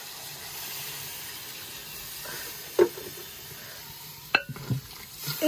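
Chicken stew sizzling in a metal pot just after water has been poured in, a steady hiss. A sharp knock comes about three seconds in, and two more near the end.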